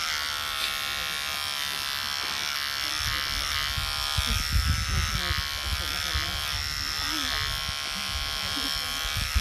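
Electric beard trimmer running with a steady buzz as it is drawn through beard hair along the cheek, jaw and neck. A few low rumbles come in about four to six seconds in.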